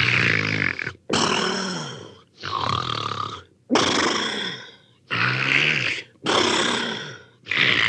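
Hanna-Barbera cartoon snoring sound effect. A rattling, pitched snore on each breath in alternates with a hissing breath out, about three full cycles of roughly a second each.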